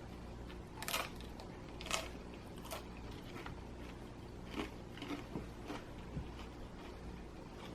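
Close-up chewing of crispy pizza crust: a few crunches about a second apart at first, then softer, irregular chewing sounds over a faint steady hum.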